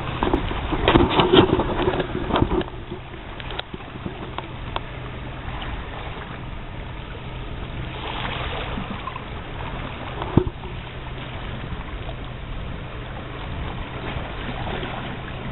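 Steady outdoor wash of wind and sea with a constant low hum. A louder burst of rough noise comes in the first couple of seconds, and a single sharp knock comes about ten seconds in.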